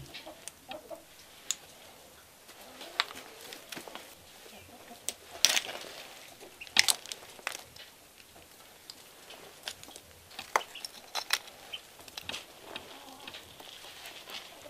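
Scattered clinks and knocks of pottery shards and clods of mud being picked over and handled by hand in a pile of rubble, with a few sharper clacks around the middle.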